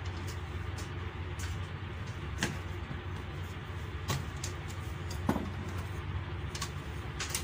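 Hands pulling wires and handling parts inside an opened inverter welding machine: a few scattered light clicks and knocks over a steady low background hum.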